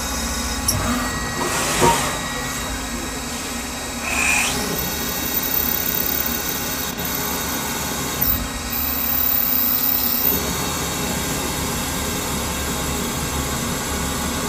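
CNC milling machine cutting with an end mill along the edge of a painted metal casting: steady spindle and cutting noise, with a few short louder scrapes.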